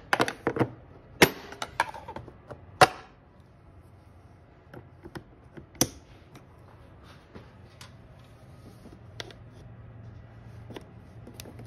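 Sharp clicks and knocks of a screwdriver and hand tools on the plastic air-intake parts, hose clamp and electrical connectors as the air intake is taken off a Jeep Cherokee 4.0 engine. A quick run of them comes in the first three seconds, then single knocks now and then.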